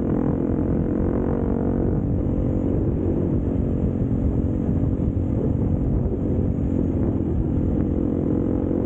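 Dirt bike engine running at a fairly steady throttle while riding along a dirt track. Wind buffeting on the helmet-mounted microphone adds an uneven low rumble.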